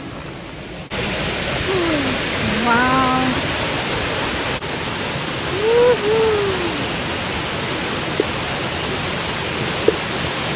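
Steady rushing roar of a waterfall, cutting in about a second in. A voice makes two brief calls over it, and there are two faint clicks near the end.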